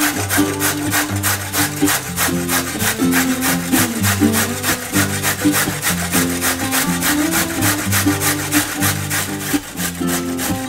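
Carrot rubbed hard against a stainless steel box grater in quick, even back-and-forth strokes, over background music.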